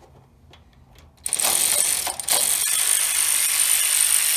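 A few faint clicks, then about a second in a cordless electric ratchet starts and runs steadily with a high whine, briefly dipping about two seconds in, as it backs out a T30 Torx valve-cover bolt on a Kohler engine. Its battery is nearly flat.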